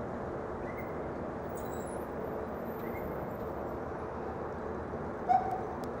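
Steady city street ambience, a low hum of traffic, with a few faint bird chirps and one louder short chirp about five seconds in.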